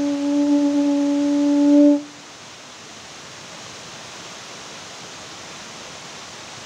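A horn-like wind instrument holding one long steady note that swells slightly and then cuts off about two seconds in. After that only a steady background hiss remains.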